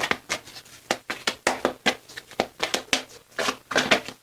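Tarot cards being handled and shuffled by hand: a quick, irregular run of card snaps and rustles.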